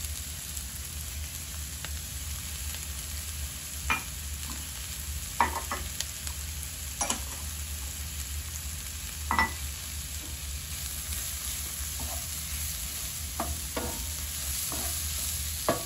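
Chopped onion, green bell pepper and green onions sizzling steadily in rendered pork fat in a nonstick skillet, with a few knocks and scrapes of a wooden spoon stirring against the pan.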